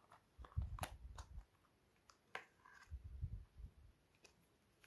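Hands handling the cardboard parts of a phone's retail box and its paper inserts: faint scattered clicks and taps, with two brief clusters of soft low thumps.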